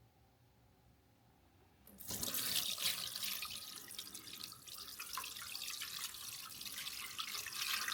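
Water running steadily from a tap, starting suddenly about two seconds in.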